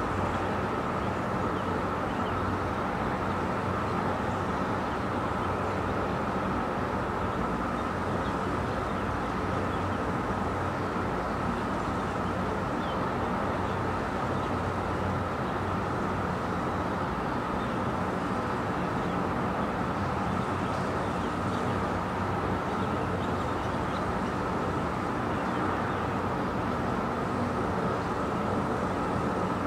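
Steady outdoor ambience: a continuous low hum of distant traffic with an even, unchanging background noise and no distinct events.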